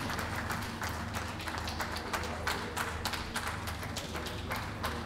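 Scattered clapping from spectators, several sharp claps a second at an uneven pace, over a steady low hum.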